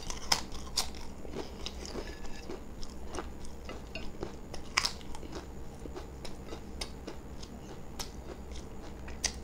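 Close-up crunching and chewing of papad, the thin crisp fried wafer, with scattered crackling bites and a few sharper cracks.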